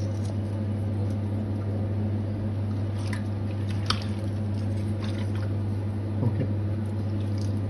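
Wet squishing with a few light clicks as hands rub and turn raw fish pieces in a bowl, over a steady low hum.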